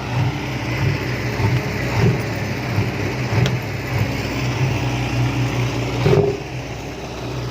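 Vehicle engine with a loud, open exhaust running steadily, with short blips of revving and one louder rev about six seconds in.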